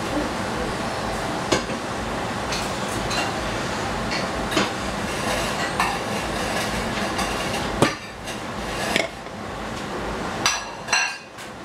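Steady stovetop hiss with scattered clinks and knocks of metal pans and utensils as a saucepan of leftover rice is moved onto a gas burner. A louder knock comes about eight seconds in, after which the hiss drops.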